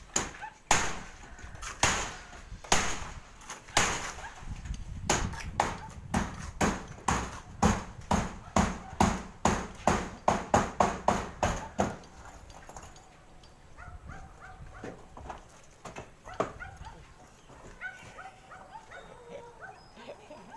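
Hammer blows on a corrugated galvanized iron roof sheet: a long run of sharp metallic strikes, about a second apart at first and then quickening to two or three a second. They stop about twelve seconds in.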